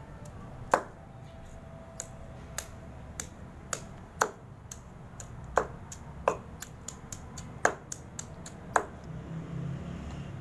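Irregular sharp clicks and knocks, roughly two a second with the loudest less than a second in, of ginger being worked by hand with kitchen tools.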